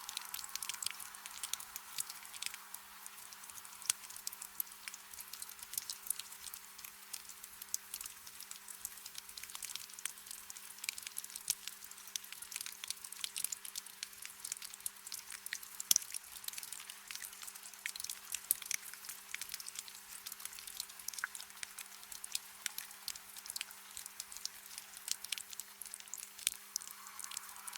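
Gentle rain falling as many small drops that patter and tick, with one sharper drop hit about sixteen seconds in. A faint steady hum runs underneath.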